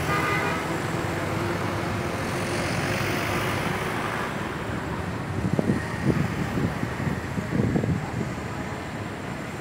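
Steady road traffic noise from passing vehicles. A horn note dies away at the very start, and there are a few uneven thumps in the second half.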